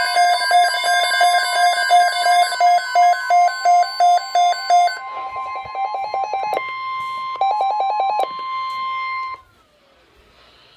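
Weather radio alert: the steady 1050 Hz NOAA Weather Radio warning tone sounds together with a receiver's electronic alarm. The alarm beeps about three times a second, then switches to quicker chirps. Both cut off about nine seconds in, ahead of the broadcast alert message.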